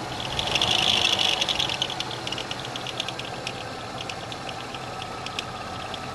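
GM 3400 V6 engine running, with a rapid ticking rattle from the accessory belt drive that is loudest in the first couple of seconds, then fainter. The rattle is the sound of a bad power steering pump pulley.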